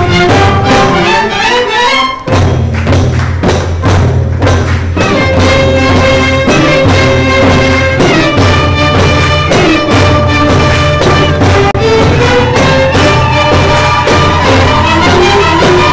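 Orchestra of violins and hand-struck frame drums playing a melody over a steady drum beat, with a low bass part coming in about two seconds in.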